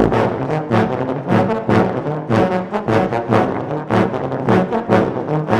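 Multi-tracked euphoniums and tubas playing an ensemble arrangement in a driving rhythm of short, repeated notes over a low bass line.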